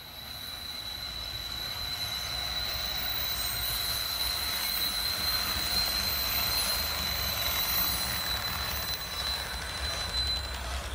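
A train running, with a steady high-pitched whine held until shortly before the end.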